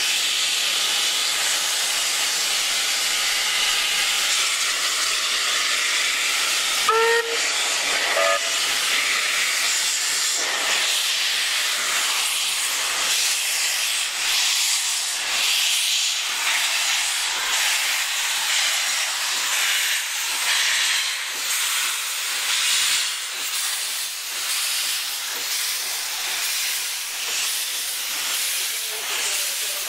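Two steam locomotives, NM25 leading and W934 behind, pass close by hissing steam. A couple of short whistle toots come about seven and eight seconds in, and from about ten seconds on their exhaust beats sound over the hiss.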